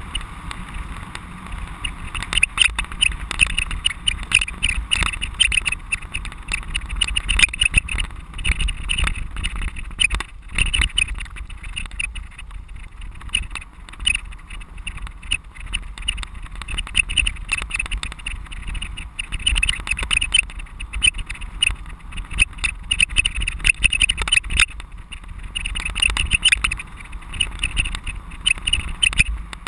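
Continuous rattling and scraping from a rear-facing camera mounted on a bicycle ridden fast over rough dirt and grass, with a low rumble from the tyres and ground underneath.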